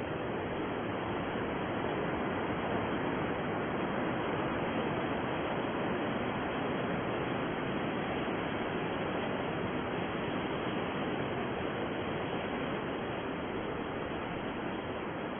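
Deep, steady white noise: an even, dull hiss without high treble that stays unchanged throughout.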